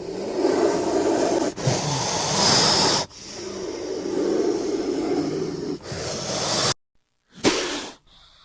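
Cobra hissing: several long, loud hisses one after another, then a brief gap and a short hiss near the end.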